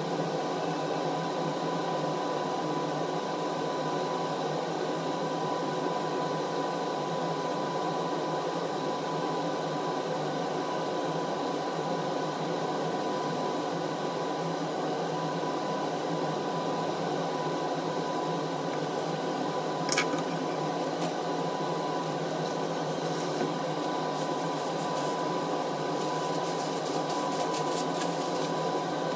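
Steady mechanical hum of a small machine, like a fan, with a constant whining tone. One sharp click comes about two-thirds of the way through, and a few light ticks near the end.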